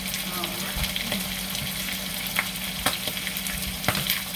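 French fries deep-frying in very hot oil: a steady sizzle with scattered sharp crackles and pops.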